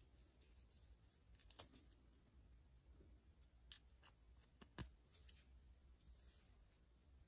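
Faint handling of plastic toy pieces and packaging: a few small, sharp clicks and taps spread a second or two apart, the loudest near the middle, with a little light rustling.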